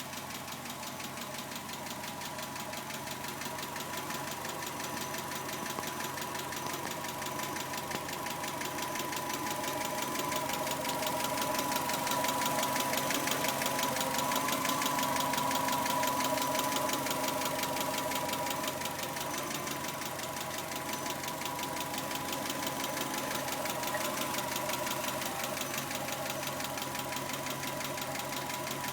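1991 Subaru Legacy flat-four engine running, with a rapid, even ticking from the top end that the owner traces to the driver side and takes for a noisy hydraulic lash adjuster.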